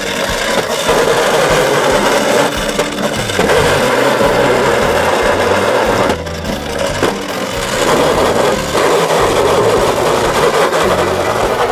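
Battery-powered toy ambulance's small electric motor and gears whirring continuously, its plastic wheels rumbling on the wooden ramp as it drives up the slope.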